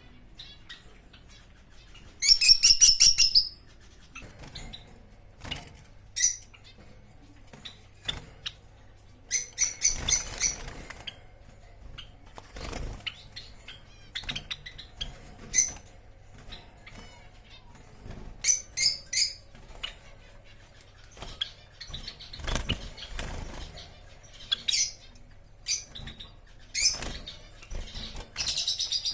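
Pet birds calling in short bursts of rapid, high chirps, the loudest burst about two seconds in. Scattered clicks and rustling come between the calls.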